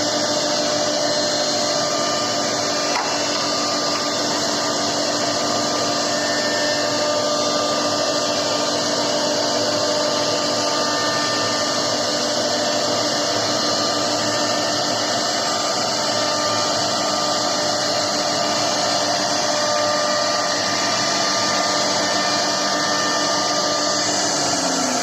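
CNC router spindle running steadily while it carves wood: a constant whine with several fixed tones over a loud hiss.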